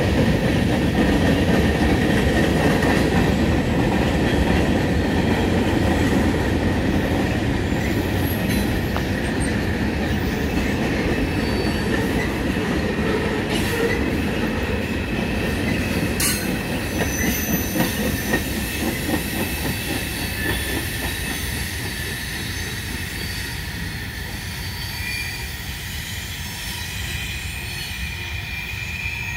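Freight cars of a long manifest train rolling past: a dense rumble of steel wheels on rail, with a thin, steady, high-pitched wheel squeal over it. The sound eases off somewhat toward the end.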